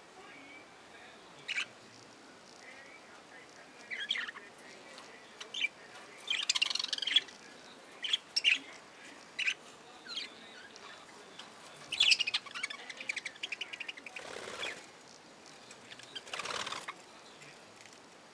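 A flock of budgerigars calling: scattered short chirps and brief spells of rapid chattering, with two longer, noisier bursts near the end.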